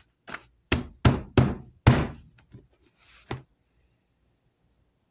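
Dull knocks and thumps of a sketchbook being handled and pressed flat on a surface: about seven in the first three and a half seconds, with a brief paper rustle near the end.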